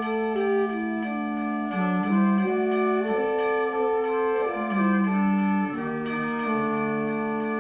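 High school symphonic band playing, with wind instruments holding sustained notes that shift in pitch every second or so, several parts at once.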